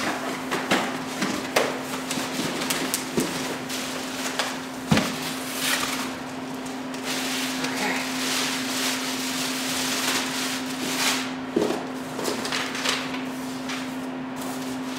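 A thick plastic bag rustling and crinkling as it is handled around a cardboard shipping box of king crab legs, with scattered knocks from the box. The sharpest knock comes about five seconds in, and a steady low hum runs underneath.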